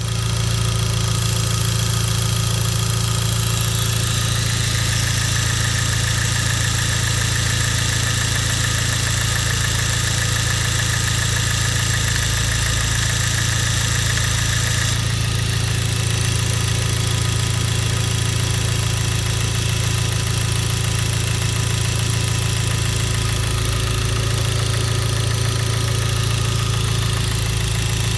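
Hyundai Genesis 2.0T's turbocharged 2.0-litre four-cylinder engine running steadily with a fast, regular knock: rod knock from a spun connecting-rod bearing after the oil pump failed to lubricate it.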